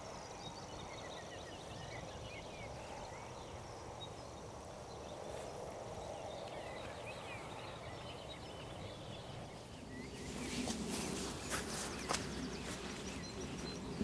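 Songbirds chirping and singing in the background over steady outdoor noise. From about ten seconds in, louder rustling and a few sharp clicks close by: a person's footsteps and camouflage clothing and netting brushing as he settles into a chair hide.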